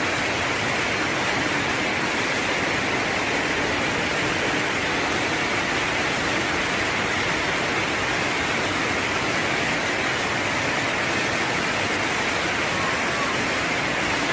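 Fast-flowing muddy floodwater rushing, a loud, steady, unbroken rush of water.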